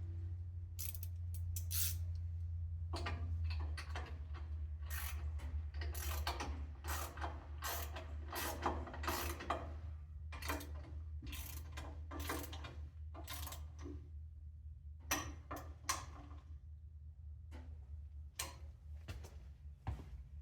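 Ratchet wrench clicking in quick runs while bolts are tightened during table saw assembly, with pauses between runs, over a steady low hum.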